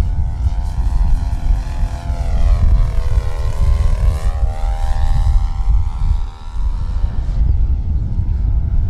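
Radio-controlled scale Van's RV-4 model airplane's propeller engine droning steadily as the plane flies a pass, loudest around the middle, over a heavy low rumble of wind on the microphone.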